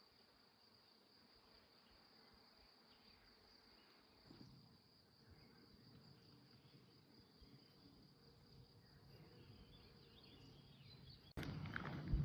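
Faint, steady high-pitched chirring of crickets in an insect chorus. Near the end it cuts suddenly to much louder rustling, like footsteps.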